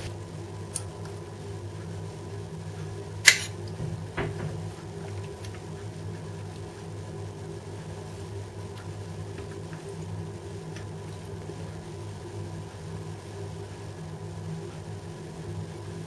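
Steady low mechanical hum, with a sharp clink of a metal spoon against a ceramic plate about three seconds in and a lighter clink about a second later, as fish and potatoes are served.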